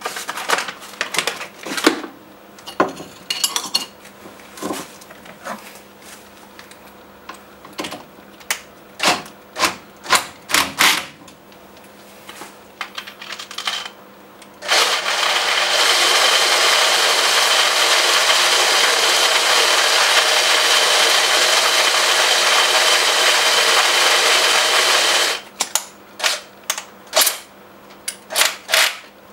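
Clicks and knocks of metal parts being handled and fitted together, then about 15 seconds in a power drill starts driving a stainless-steel hand-crank coffee grinder, a steady loud whirr for about ten seconds that stops abruptly, followed by more scattered clicks.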